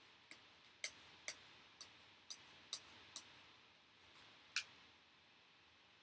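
A run of nine sharp, light clicks, about two a second, with a short pause before the last two, then quiet.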